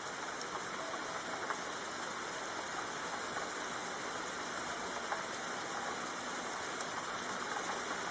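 Steady ambient background bed of soft hissing noise with a few faint crackles or ticks, left running between narrated stories.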